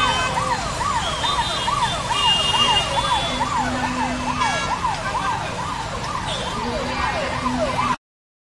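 A siren wailing rapidly up and down, about three cycles a second, over busy street traffic, with a couple of held vehicle-horn blasts. The sound cuts off suddenly near the end.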